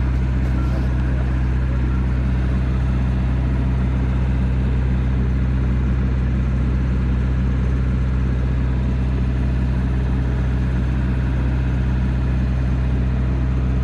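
Motorboat engine running at a steady cruising speed: a loud, even drone with a deep hum.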